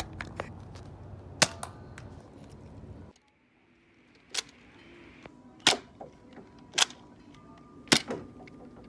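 Small firecrackers going off: a series of sharp, short bangs, with one bang early and then four more about a second apart in the second half, among smaller pops and clicks.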